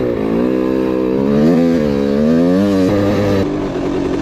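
Kawasaki KX125 two-stroke dirt bike engine running at steady, fairly high revs, its pitch rising and dipping slightly, with an abrupt change in the sound near the end.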